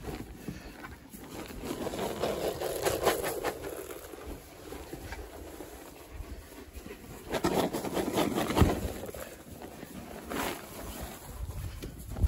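Rustling and handling noise while walking through hay with a rubber pan of feed pellets, swelling twice and with a sharp knock about eight and a half seconds in.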